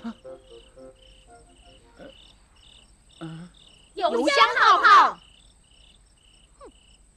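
Crickets chirping steadily, a short regular chirp about three times a second. About four seconds in, a chorus of women's voices sings a short line for about a second, louder than the crickets.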